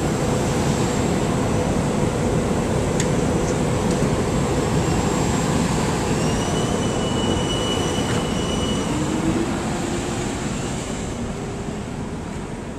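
SEPTA Regional Rail electric train cars rolling past close by, with a steady rumble of wheels on rail. A thin high wheel squeal sounds from about six to nine seconds in, and the noise fades near the end.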